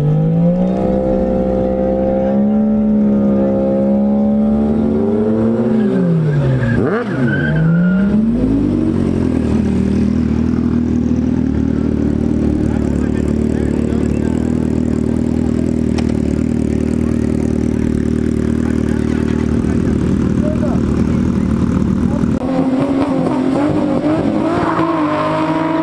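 Drag-racing car engines at the start line. They are revved and held at a steady high pitch, then drop sharply and climb again about six to eight seconds in as the cars launch. After that, engines run steadily at idle, and near the end another car's engine revs up and is held at the line.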